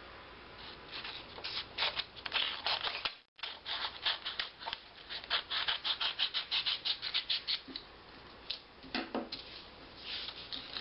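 Small scissors snipping through a sheet of paper in a long run of quick cuts, densest in the middle. The sound drops out completely for a moment about three seconds in.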